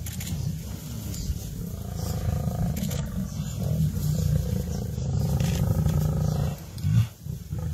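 Lions growling, a steady low-pitched sound, with a short break near the end and one sudden loud peak within it.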